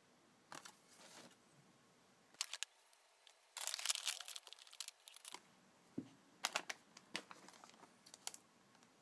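Foil chip bag and the foil card packet inside it crinkling and rustling as hands handle them: short crackles early on, a loud stretch of crinkling about midway, then scattered crackles.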